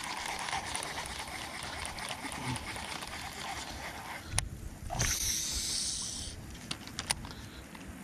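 Topwater fishing lure being worked back across calm river water on a rod and reel, with light water and boat noise, a few sharp ticks, and a hiss lasting just over a second about five seconds in.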